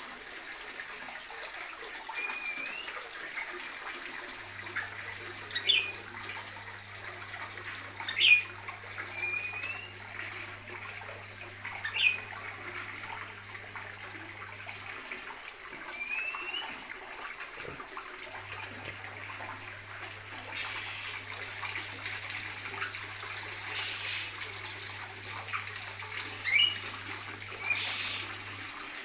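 Small cage birds chirping: scattered short, sharp calls that sweep upward in pitch, some loud, over a steady rushing noise.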